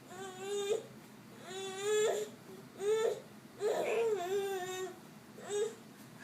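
A baby fussing and crying in five short wails with pauses between, the fourth the longest.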